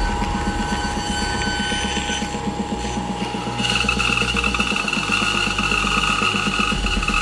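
A woodworking power machine running steadily with a fast, even pulse and a steady whine, its tone changing about three and a half seconds in as the cut changes.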